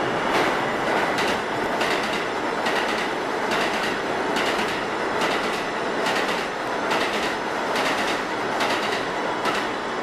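New York City subway train passing through a station at speed: a loud, steady rush of wheels on rail, with a regular clatter a little more than once a second as the wheels cross rail joints.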